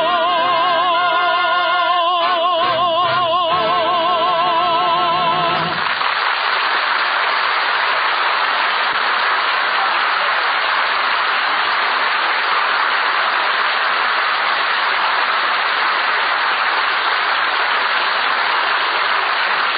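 A male tenor holds the song's final note with vibrato, cutting off about six seconds in. A long round of studio-audience applause follows.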